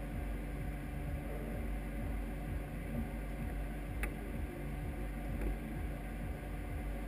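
A single-seater racing car's Renault engine idling steadily. A single sharp click comes about four seconds in.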